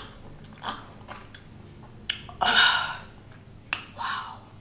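Cola being drunk from a glass mug: small sharp clicks and gulps of swallowing, with a loud breathy gasp of about half a second near the middle.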